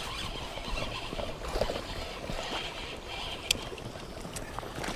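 Water flowing and splashing at the stream's edge while a hooked bass is played, with a few faint clicks.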